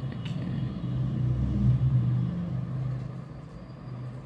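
A low, engine-like rumble with a steady hum that swells about a second in and fades again, with a faint click near the start.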